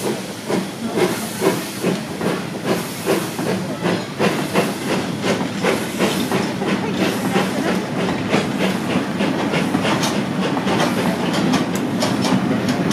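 Ivatt Class 4 2-6-0 steam locomotive pulling away with a freight train: exhaust chuffs with hissing steam, the beats quickening as it gathers speed. Goods wagons rumble past over the rail joints.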